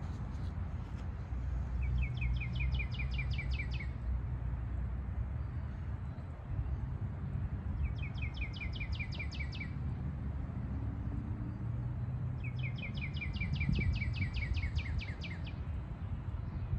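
A bird singing the same short phrase three times, a few seconds apart, each phrase a quick run of about a dozen repeated high notes, over a steady low rumble.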